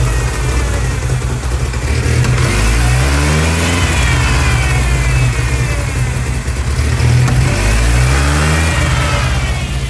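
1999 Ford Ranger 2.5-litre four-cylinder engine running, revved up twice, about two and a half seconds in and again near eight seconds, on an engine with a massive vacuum leak.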